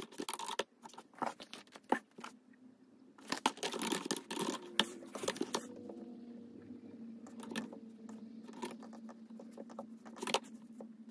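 Typing and rustling at a computer desk: bursts of key clicks and rustle, densest around the middle, over a faint steady hum that starts about six seconds in.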